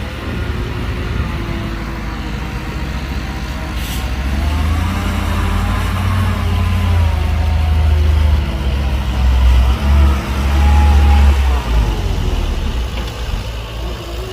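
Heavy diesel engine of earthmoving machinery, a dump truck or bulldozer, running under load, growing louder from about four seconds in and easing again near the end. A single sharp click about four seconds in.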